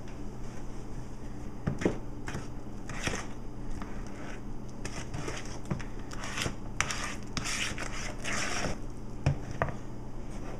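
Wooden spoon stirring an egg into a thick peanut butter mixture in a mixing bowl: irregular scraping and swishing with a few light knocks against the bowl, busiest in the second half, over a steady low hum.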